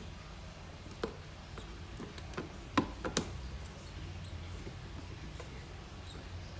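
Lid of a clear plastic storage box being handled and pressed shut: a few sharp plastic clicks and knocks, one about a second in, the loudest a little before the middle and two more just after it.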